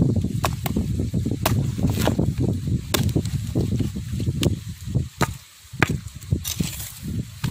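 Curved hooked chopping blade striking a dry coconut's fibrous husk, a series of sharp, irregular chops about one or two a second as the husk is hacked away. A low rumble sits under the first half and fades out about halfway through.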